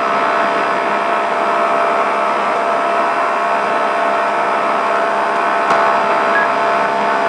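Can-Am UTV engine running at a steady pitch while the car drives a rocky dirt road, with tyre and wind noise mixed in. Late on there is a single sharp knock.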